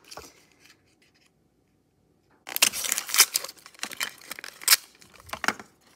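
Crinkling and rustling of a thin toy-capsule wrapper being handled and unwrapped, with small sharp crackles, in a burst that starts about two and a half seconds in and lasts a couple of seconds.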